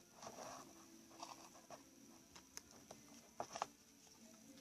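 Faint, irregular sticky clicks and soft squelches of glue-and-borax slime being mixed by hand, a few short snaps scattered through.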